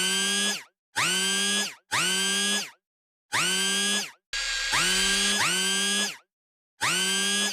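A buzzy pitched tone that slides up and then holds, repeated about seven times in quick succession with brief silent gaps between. The repeats are identical, like a looped sound effect.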